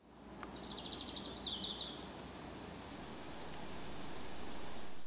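Outdoor woodland ambience fading in: a steady hiss with small birds calling, thin high whistles throughout and a fast chirring trill from about half a second to two seconds in.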